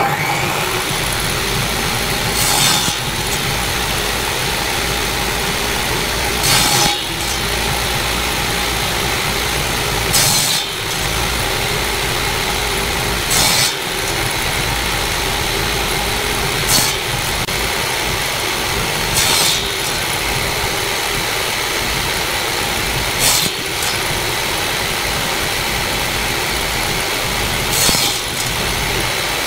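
Table saw running steadily, its blade cutting the corners off small wooden blocks fed through a jig: about eight short cuts, one every three to four seconds.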